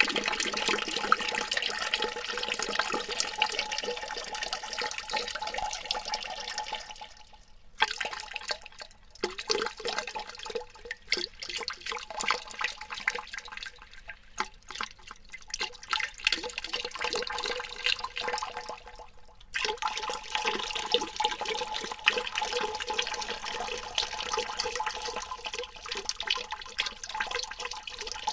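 Water dripping with echo, processed to a lower pitch and compressed: a dense run of drips and splashes with a faint steady ring underneath. It thins out and restarts abruptly twice, about 8 s in and about 20 s in.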